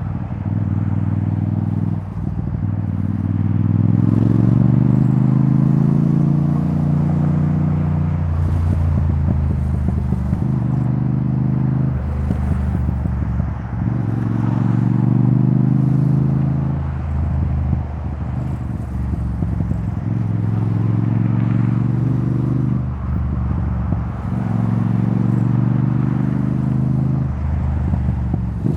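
2024 Yamaha XSR700's 689 cc CP2 parallel-twin engine through a debaffled Akrapovic titanium exhaust, pulling at freeway speed. Its note climbs in pitch under throttle for a few seconds, then drops back, several times over, with steady wind and road rush underneath.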